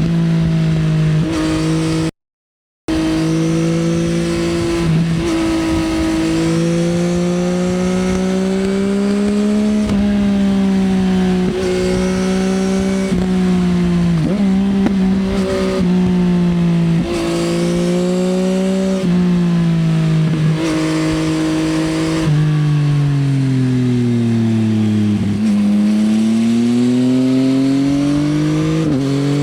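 2024 Yamaha XSR900's 890 cc CP3 inline-three running through an Akrapovič Racing Line exhaust at speed, its pitch held high with several short dips between gears. The sound drops out completely for under a second about two seconds in. Near the end the revs fall away to a low note and then climb again.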